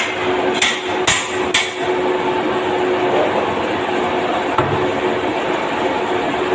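Three sharp, ringing hammer blows on a steel frame, about two a second, ending a run of strikes. A steady hum and a dull knock or two follow.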